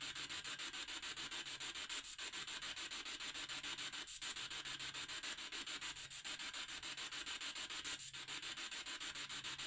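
Steady static hiss chopped into rapid even pulses, about ten a second, dipping briefly about every two seconds, with a faint low hum that comes and goes.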